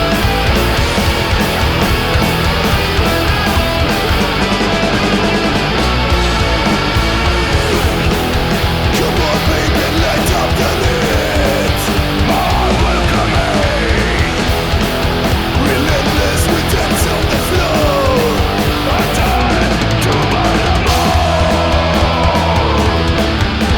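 Punk rock band recording: loud electric guitars and drums playing steadily, with sliding, bending lead notes from about ten seconds in.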